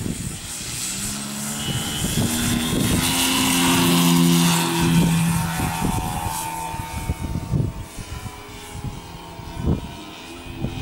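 Radio-controlled aerobatic model airplane's motor and propeller throttling up for take-off, building to its loudest about four to five seconds in, then fading as the plane climbs away. Wind buffets the microphone in the second half.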